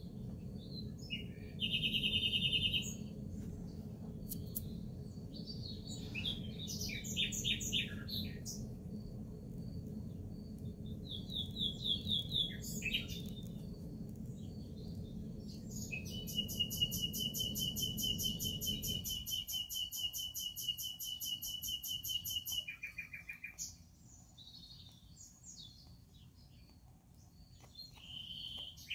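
Songbirds chirping in short scattered phrases, with one long, rapid trill lasting several seconds past the middle. A low steady hum runs beneath and stops about two-thirds of the way through.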